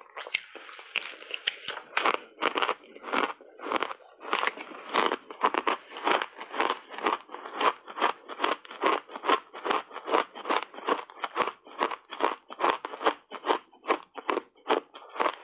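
Blended shaved ice being chewed close to the microphone: a steady run of crisp crunches, about three a second, with a softer hissing crunch in the first couple of seconds as the big bite is taken.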